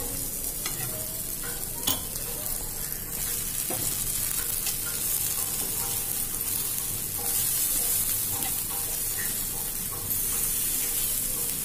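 Green-pea tikki patties sizzling as they shallow-fry in mustard oil on a flat tawa, a steady hiss, with one sharp click about two seconds in.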